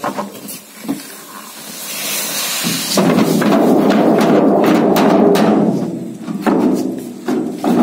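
Freshly boiled paddy tipped out of the boiling vessel onto the floor: a loud rush of pouring grain starts suddenly about three seconds in and runs for about three seconds, followed by shorter spills and knocks.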